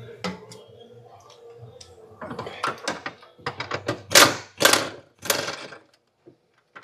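Hand ratchet clicking in a series of short strokes while loosening the fuel tank strap bolts, getting louder from about two seconds in and stopping near the end.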